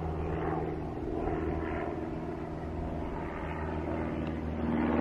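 Steady drone of an engine, a low hum of several even tones, growing slightly louder near the end.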